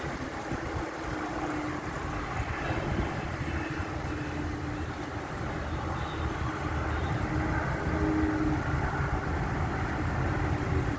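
Strong gusty wind ahead of a thunderstorm, buffeting the microphone with a steady rushing and rumbling noise.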